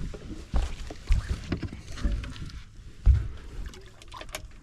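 Irregular low thumps and knocks on a fishing boat's hull, about five in all, the loudest about three seconds in.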